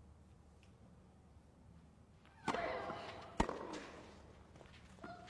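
Tennis ball struck by rackets: a hush for the first half, then the serve about two and a half seconds in and the return just under a second later, each a sharp crack.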